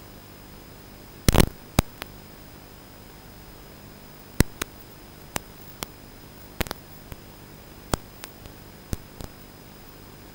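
Steady hiss with a faint high whine, the noise floor of the drone's video and audio feed, broken by a dozen or so irregular sharp knocks and taps from the room. The loudest is a quick cluster of knocks about a second in.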